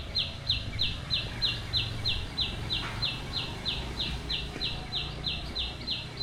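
A high-pitched animal call repeated evenly, about three times a second, each note a short falling stroke.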